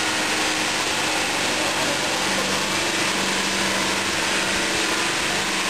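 Stone cutting machine running steadily: a constant motor hum with an even hiss over it.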